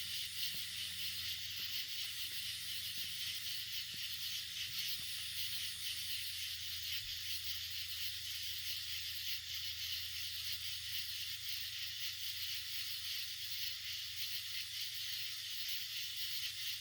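A dense chorus of night insects such as crickets and katydids: a steady, high, shrill hiss of many overlapping calls.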